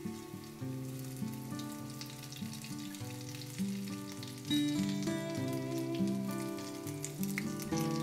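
Potato patties sizzling and crackling in hot oil in a nonstick frying pan, under background music with steadily changing notes.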